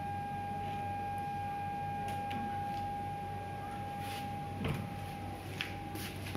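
A steady high-pitched electronic whine that starts as the headlights switch on, with a low steady hum underneath and a few small clicks.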